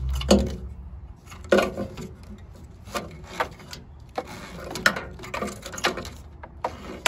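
Hands working a tail light wiring harness and its bulb sockets: irregular sharp plastic clicks and knocks with rubbing between them.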